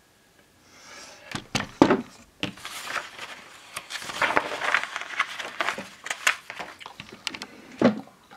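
Glossy magazine pages being turned by hand: paper rustling, with several sharp flaps as the pages flip over and land.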